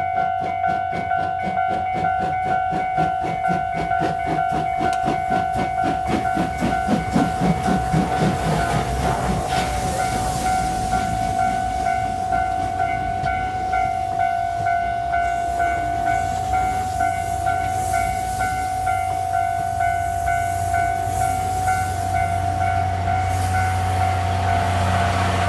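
C11 steam tank locomotive working past with a fast, even beat of exhaust chuffs, loudest about seven or eight seconds in as it passes, then passenger coaches rolling by on the rails, with a DE10 diesel locomotive's engine running steadily at the tail near the end. A level-crossing alarm rings with a steady, repeating tone throughout.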